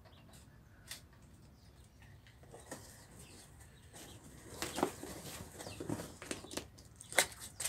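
Young quails fluttering and scrambling inside a cardboard box as a hand reaches in to catch one, with rustles and knocks of the cardboard. Faint at first, then a run of short scuffles, with the sharpest knock near the end.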